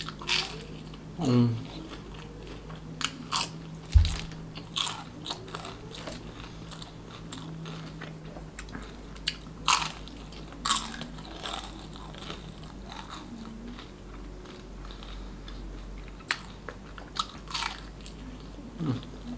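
Close-miked biting and chewing of a crispy fried spring roll (popiah goreng), with many short, sharp crunches. One dull low thump about four seconds in is the loudest sound.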